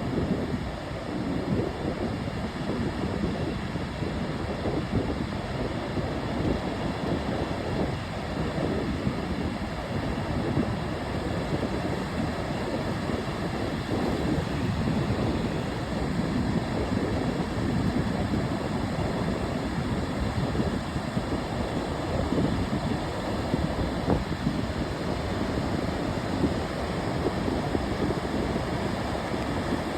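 Ocean surf: a steady, low wash of waves that swells and eases gently, with no single breaker standing out.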